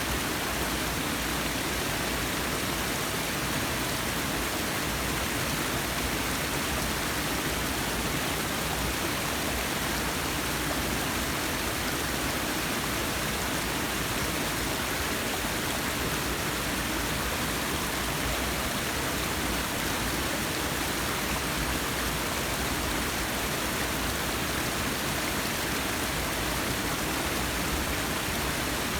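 Forest waterfall: a steady, unbroken rush of falling water.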